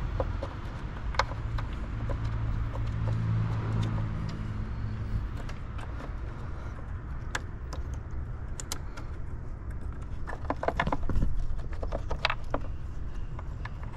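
Small metallic clicks and taps of a bolt and screwdriver being fitted by hand among engine-bay parts, thickest in the second half, over a steady low rumble.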